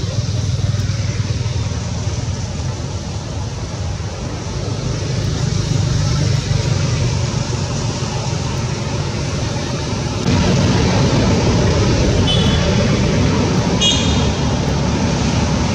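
Steady low rumble with a hiss above it, stepping up louder suddenly about ten seconds in, with two short high chirps near the end.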